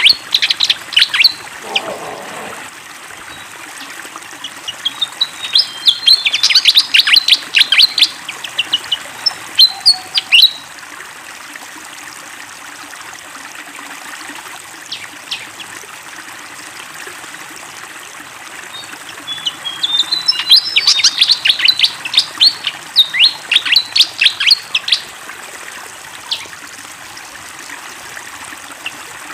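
Fantail flycatcher (sikatan kipas) singing in spells of rapid, high chirping notes over a steady sound of flowing water. The song comes three times, with stretches between where mostly the water is heard.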